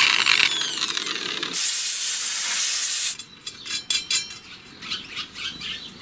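An electric drill spinning down with a falling whine after drilling the steel sprocket, then a steady loud hiss for about a second and a half. After that come light metallic clicks and clinks of small parts being handled.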